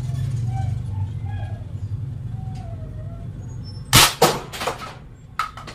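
A steady low rumble, then a quick run of three sharp knocks about four seconds in and one more near the end.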